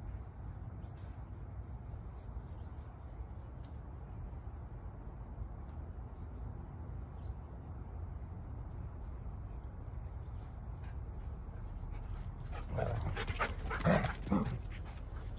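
Dogs at play: after a long stretch of only a low steady background, a dog makes several short, loud vocal sounds in quick succession about two seconds before the end, as the dogs run together.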